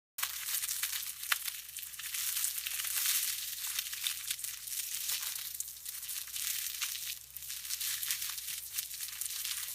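Crisp fresh salad leaves crunching and crackling continuously, a dense crisp rustle with sharp snaps scattered through it.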